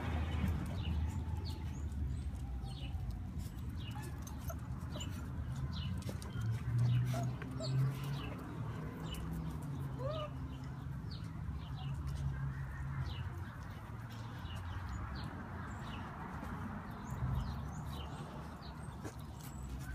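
Pit bull puppies giving small grunts and a brief rising whimper about halfway through, over a low rumble, with many short high chirps scattered throughout.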